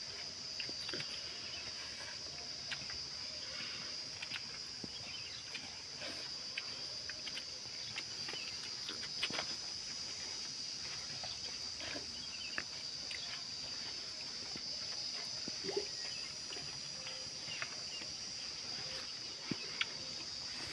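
Steady, high-pitched drone of insects, with scattered small clicks and rustles of hands mixing rice on leaf plates.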